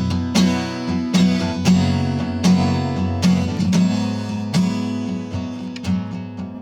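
Acoustic guitar strummed in a steady rhythm, a chord stroke every half second or so, between sung lines of a song.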